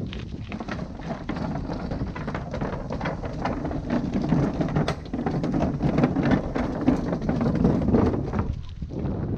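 Ride noise from a moving bicycle: wind buffeting the microphone over a low rumble, with many small knocks and rattles throughout.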